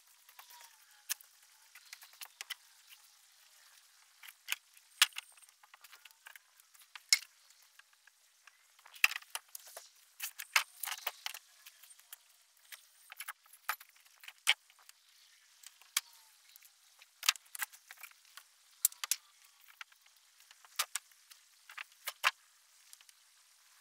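Irregular light clinks and rattles of small hard pieces knocking together, with a few louder sharp knocks scattered through.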